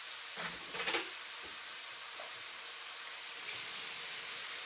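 Ground turkey frying in sesame oil in a hot wok: a steady sizzling hiss that gets a little louder about three and a half seconds in. There is a brief handling noise about half a second in.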